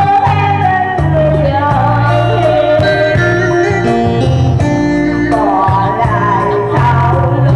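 A woman singing into a microphone through loudspeakers, backed by an electronic keyboard with a steady bass line.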